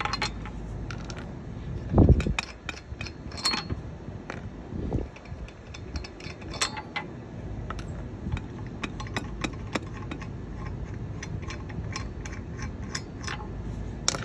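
Chrome lug nuts being spun off the wheel studs by hand and handled, with scattered small metallic clicks and clinks and a louder thump about two seconds in.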